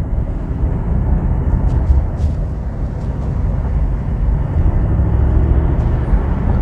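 Mercedes-AMG SL63's twin-turbo V8 exhaust, with the sports exhaust valve open in comfort mode, running with a steady low rumble while driving, with little popping or banging.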